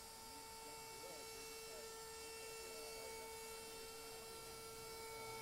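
Modified trim router running at high speed as it cuts into a wooden sign, a steady unbroken whine. Faint chatter of people around the table underneath.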